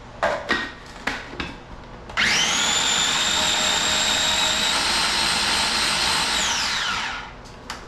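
A few light knocks, then an electric blender motor spins up about two seconds in, runs steady at high speed for about four seconds, and winds down near the end. It is puréeing pineapple chunks, cream of coconut and salt into a sauce.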